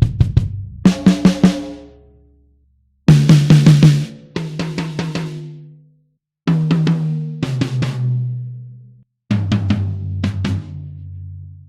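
Sampled drum kit from the EZdrummer 3 Custom Shop EZX library playing about five short fills. Each fill is a quick run of snare and tom hits, with the toms ringing out and stepping lower in pitch, and a short pause between fills.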